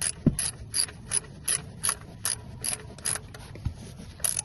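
Ratchet wrench with a 14 mm socket clicking in short strokes, about two or three a second, as the oil drain plug is run back in, with a short pause near the end.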